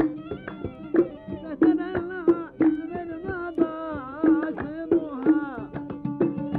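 Kuwaiti fann al-sawt music: a violin playing a sliding, ornamented melody over an oud, to an uneven beat of sharp hand claps.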